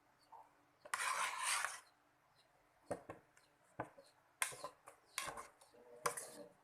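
A kitchen utensil scraping against cookware in a few short strokes, with sharp clicks and taps between them.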